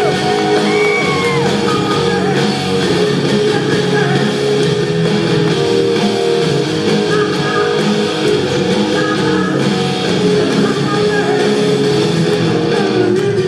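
Live rock band playing with electric guitar and a male singer's voice, heard from far back in the audience of a large amphitheatre.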